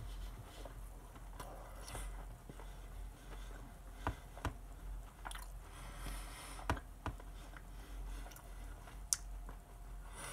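A man chewing a mouthful of food close to the microphone, with a few short, sharp clicks scattered through it.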